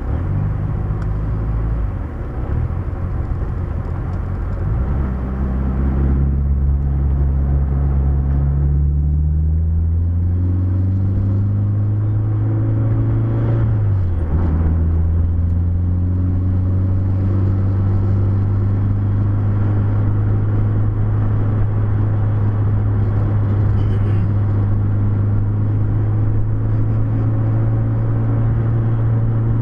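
Car engine running under way: steady at first, then climbing in pitch for several seconds as the car accelerates. About halfway through the pitch drops sharply at a gear change, and the engine then runs at a steady cruise.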